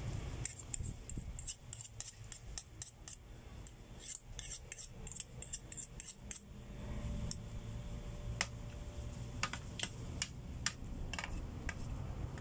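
Spaghetti being chewed close to the microphone, with small wet mouth clicks and light clinks of a metal fork against a spoon. The clicks come thick and fast for the first six seconds or so, then more sparsely.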